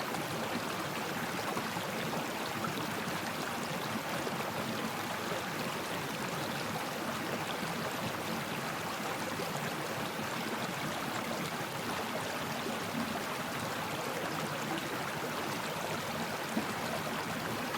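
Stream water flowing steadily over rocks: a continuous rushing and gurgling with fine splashy detail and no breaks.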